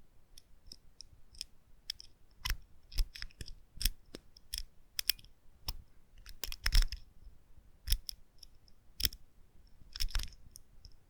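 A lock being picked: irregular sharp metallic clicks and small scrapes of the pick working inside the lock, sometimes several close together, sometimes a second or more apart, with the loudest click about seven seconds in.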